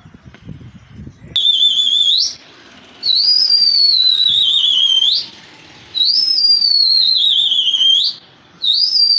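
A whistle blown in four long, loud, warbling blasts, each sliding down in pitch and flicking up at its end. The first starts about a second and a half in, and the last runs on past the end.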